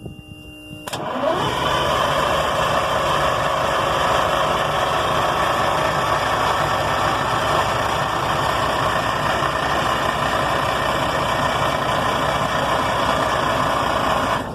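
Detroit Diesel 6V92 two-stroke V6 diesel engine catching about a second in and running steadily, then dying on its own right at the end.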